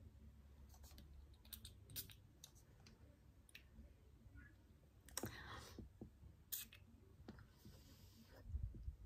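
Faint clicks and handling of a small perfume bottle and its plastic head-shaped cap, with a brief hiss about five seconds in and a low thump near the end.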